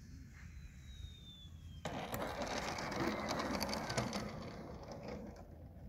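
Electric RC airplane landing: a faint electric-motor whine falls in pitch as it comes in, then about two seconds in the wheels touch down and rattle over the asphalt runway, fading as it rolls out.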